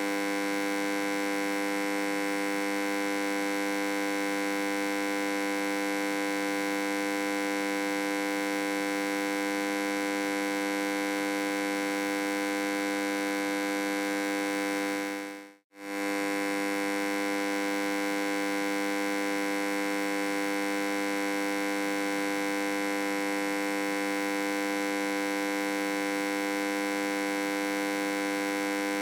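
Electric hum: a steady drone of several held tones at an even level. It dips out for a moment about halfway through and comes straight back.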